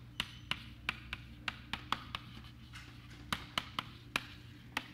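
Chalk tapping on a blackboard as words are written: a quick, irregular run of sharp taps, about three a second, over a faint steady low hum.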